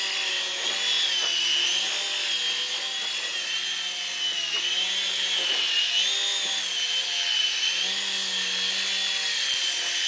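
Small indoor remote-control helicopter's motor and rotor running in flight: a steady high-pitched whine whose pitch wavers slightly up and down as the throttle shifts.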